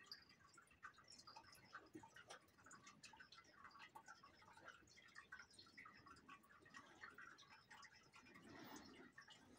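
Near silence with faint, scattered light taps and scratches: a brush working watercolour paint on paper.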